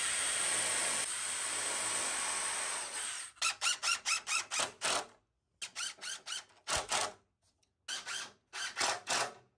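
Cordless drill running steadily into wood for about three seconds, then a string of short stop-start bursts as a DeWalt 20V impact driver drives a screw into the board.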